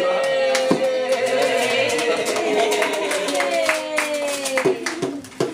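A child slapping a small toy drum with his hand and people clapping, over a long held pitched tone that slowly falls in pitch, with a second tone joining partway through.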